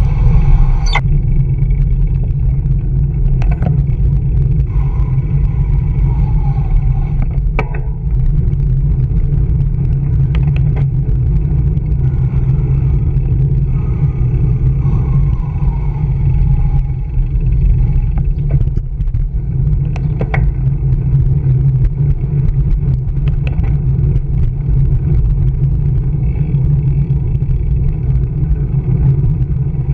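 Steady low rumble of wind buffeting and road vibration on a riding cyclist's camera, with city car traffic around, broken by a few sharp knocks as the bike goes over bumps.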